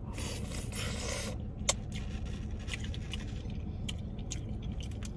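A scrape about a second and a half long, then a sharp click and a few faint ticks: a utensil scraping food in a takeout container.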